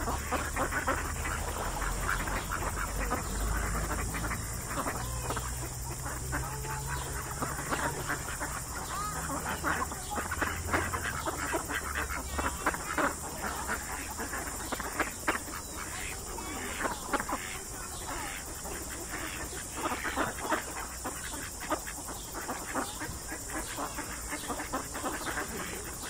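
A flock of birds calling in a dense, continuous chorus of short overlapping calls, with a low rumble underneath during the first half.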